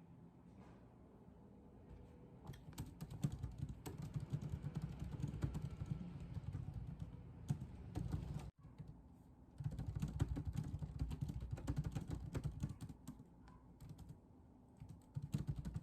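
Typing on a computer keyboard: rapid, uneven key clicks that begin a couple of seconds in and run in two stretches with a short pause a little past halfway.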